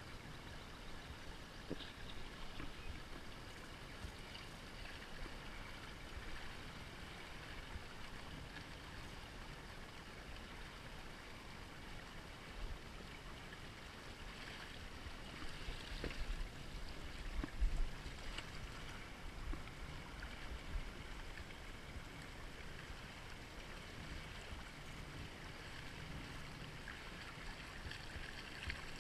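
Faint, steady flow of river water around a small inflatable raft, with a few soft knocks and low bumps.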